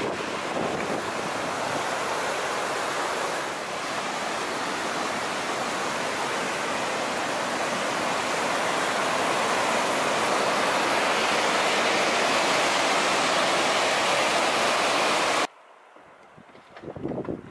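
Whitewater rapids rushing over rocks, a steady loud rush that swells a little partway through. It cuts off suddenly near the end, leaving a much quieter background.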